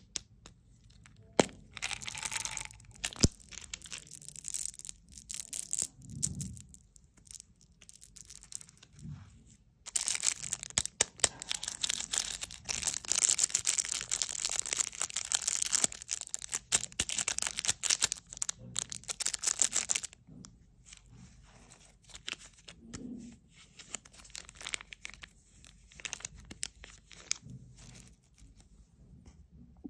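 A clear plastic wrapper crinkling and tearing as it is opened by hand. It is loudest and densest for about ten seconds in the middle and stops suddenly. A few sharp clicks near the start come from a plastic candy tube's flip cap being snapped open.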